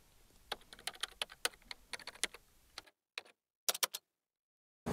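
Keyboard-typing sound effect: a run of quick, irregular key clicks, then a short break and a few more clicks near the end.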